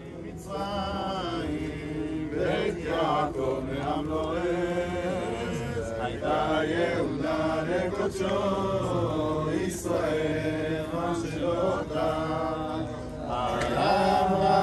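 Men's voices chanting Hebrew prayers in a melodic, drawn-out liturgical chant, a little louder near the end.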